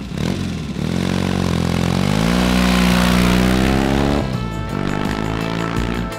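Vintage Triumph motorcycle engine revving as the bike pulls away, its note rising over about two seconds, holding, then dropping about four seconds in. Music with a strummed guitar comes in near the end.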